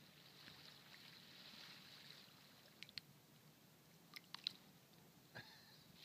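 Near silence: faint water lapping at a canoe hull, with a few short sharp clicks and small splashes in the second half.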